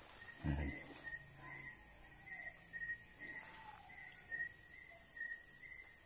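A chorus of night insects calling steadily, several voices at different pitches pulsing over one another. A low thump comes about half a second in.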